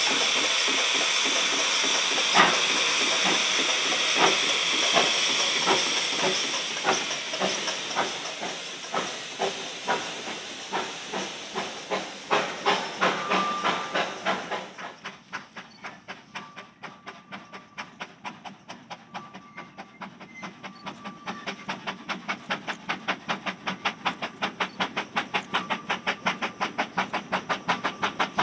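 Narrow-gauge steam locomotive getting under way, with a heavy hiss of steam over regular exhaust chuffs. The hiss fades out about halfway through, and the chuffs quicken into a fast, even beat that grows louder near the end.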